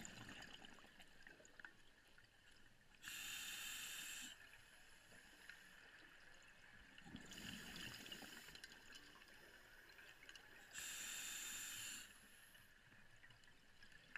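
Scuba divers' regulators heard underwater: three bursts of exhaled bubbles, roughly four seconds apart and each about a second long, over a faint steady hiss.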